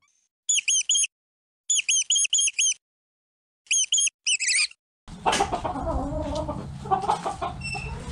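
Mouse squeaks: short groups of high, arched squeaks, three to five at a time, with dead silence between them. About five seconds in, hens start clucking over a busy farmyard background.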